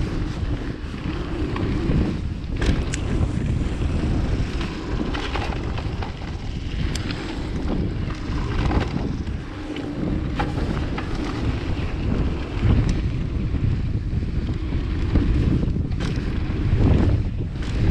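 Wind buffeting the microphone of a camera riding on a mountain bike down a flow trail, over a steady low rumble of tyres rolling on the trail, with scattered clicks and knocks from the bike over bumps.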